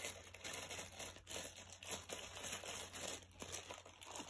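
Faint, irregular crinkling of a small clear plastic bag being handled and pressed in the hands while something is worked back into it.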